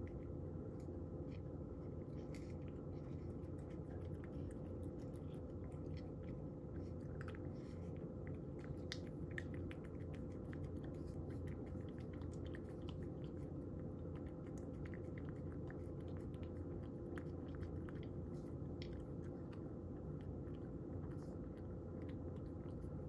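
A cat eating dry kibble: faint, irregular crunches and small clicks of chewing, over a steady low hum.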